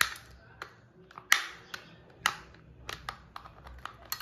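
Small precision screwdriver turning a screw on the underside of a plastic toy jeep, opening the battery cover. It makes about ten sharp, irregular plastic clicks and ticks, the loudest about a second and a half in.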